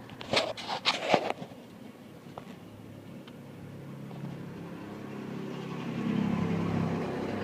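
A few knocks and clatter in the first second or so, as of parts being handled, then a passing vehicle whose hum slowly grows to a peak near the end and starts to fade.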